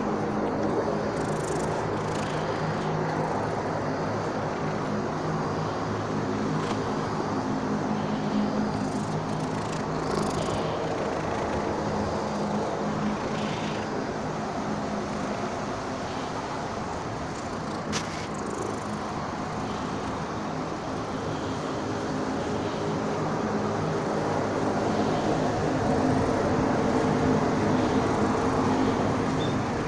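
Steady low hum of road traffic, with one sharp click about eighteen seconds in.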